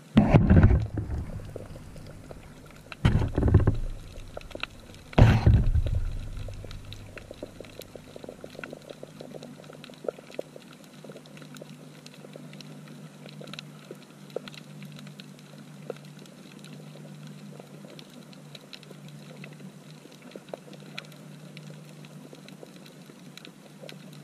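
Underwater sound picked up by a camera in its housing on a coral reef: three loud, low thumping rushes in the first six seconds, then a faint, steady crackle of many small clicks over a low hum.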